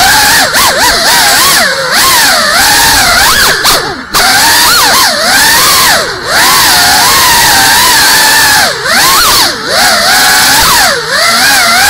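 GEPRC Cinelog 35 cinewhoop's brushless motors and ducted propellers whining loudly close to the onboard camera's microphone, the pitch swooping up and down constantly as the throttle changes. The level dips briefly a few times as the throttle is chopped.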